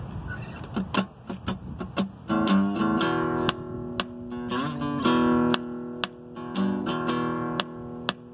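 Steel-string acoustic guitar strummed with a pick, opening a song: a few light, scattered pick strokes at first, then full chords ringing out from about two seconds in.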